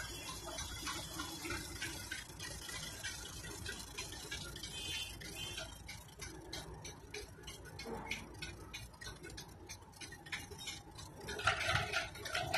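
Harbour water lapping against a boat's hull, a rapid irregular patter of small slaps and splashes over a low rumble, growing louder near the end.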